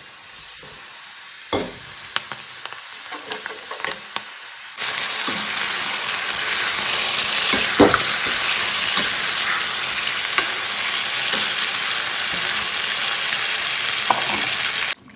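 Sliced onions sizzling gently in oil in a metal kadai, with a metal ladle scraping and knocking against the pan. About five seconds in the sizzle jumps suddenly to a loud, steady frying hiss as raw chicken pieces go into the hot oil and are stirred with the ladle; it cuts off suddenly near the end.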